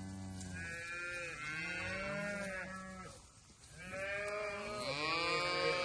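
Cattle mooing: several overlapping calls at different pitches from cows and their calves, with a brief lull about three seconds in.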